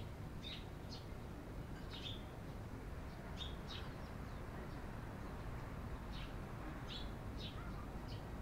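Eurasian tree sparrows chirping: about ten short, irregularly spaced chirps over a steady low background hum.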